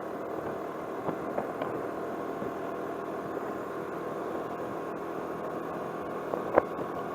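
Steady vehicle engine and road noise heard from inside a car driving slowly, with a few light knocks and one sharper knock about six and a half seconds in.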